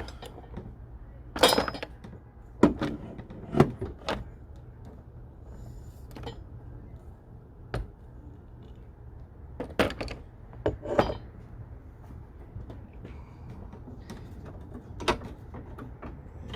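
Separate metallic clanks and knocks, about nine of them with the loudest a few seconds in, from tools and the steel hood hinge being worked loose and pulled out of the car body, over a steady low hum.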